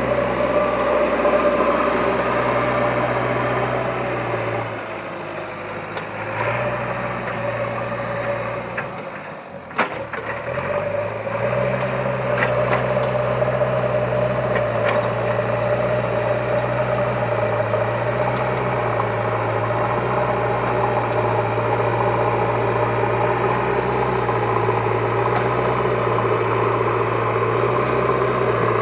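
JCB 3DX backhoe loader's diesel engine running. It eases off a few seconds in and there is a sharp knock near ten seconds. It then runs steadily, its note stepping up and down every few seconds.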